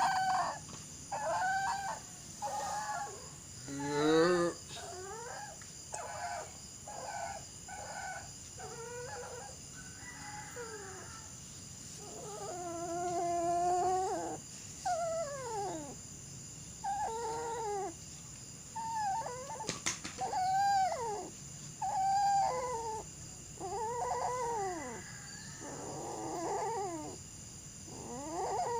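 A dog making a long run of high, pitched whining and howling cries, each call rising and falling, one after another with short gaps; one longer wavering cry comes about halfway.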